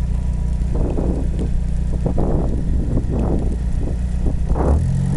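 Car engine running with a steady low rumble and short bursts of noise every second or so, the car stuck in deep snow.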